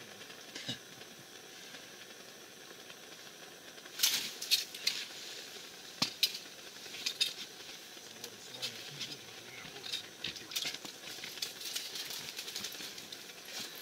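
Steady hiss of a gas burner heating an ice-fishing tent. From about four seconds in come scattered sharp clicks and taps as a small winter jigging rod is handled and set down on the ice.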